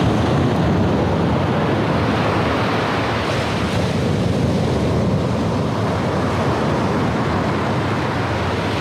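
Sea waves washing onto the beach in a steady loud rush, with wind buffeting the microphone.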